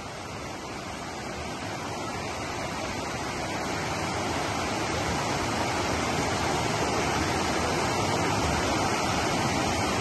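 Whitewater river rapids rushing over rocks: a steady, dense sound of churning water that grows gradually louder.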